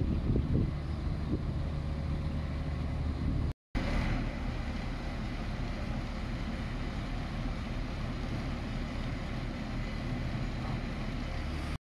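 Diesel engine of a Grove truck crane running steadily, a low even hum, with a brief break in the sound about a third of the way in.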